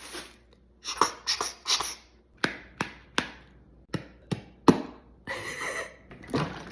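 Sharp taps in two quick sets of three, with short hissing bursts before and between them: a small clay figurine being handled and knocked on a surface, alongside beatboxed mouth imitations of it.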